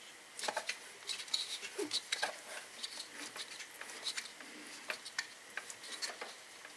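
Faint, irregular light clicks and ticks from a 150cc four-stroke go-kart engine being turned over slowly by hand at the flywheel, its valve train and metal parts clicking as it rotates toward the exhaust valve's highest point.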